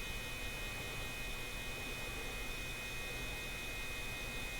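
Steady electrical hum with a thin, constant high whine over it: the background noise of the recording, with no distinct handling sound.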